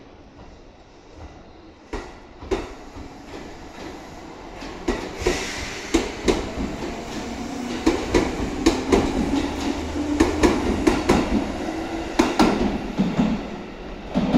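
Seibu electric train in red 'Akaden' livery rolling slowly past at close range, its wheels knocking irregularly over rail joints and points. The knocks grow louder and more frequent through the middle, over a steady rumble and low hum, then ease off near the end.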